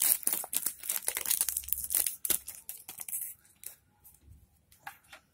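Clear plastic shrink-wrap being torn and crinkled off a deck of cards: dense crackling for about three seconds, then a few scattered, fainter crinkles near the end.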